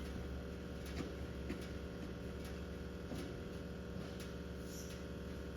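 Steady low hum of room and machine background, with a few faint scattered clicks and knocks, as of small objects being handled.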